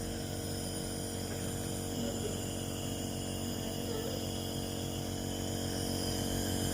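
Compressor nebulizer running with a steady hum, giving inhaled medicine ('uap') to a coughing child.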